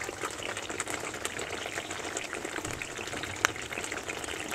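Thick shahi paneer gravy simmering in a pan, bubbling and crackling steadily where the oil has separated out, with one sharper click about three and a half seconds in.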